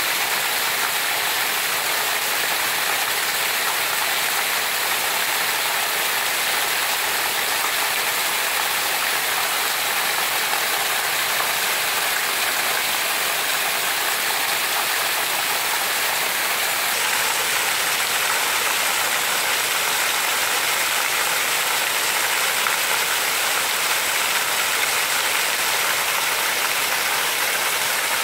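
Heavy rain falling steadily on trees and ground: a dense, even hiss of drops that stays at one level throughout.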